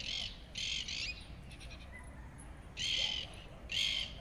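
Four short, high-pitched, raspy squeaks or calls in two pairs, the second pair about three seconds in.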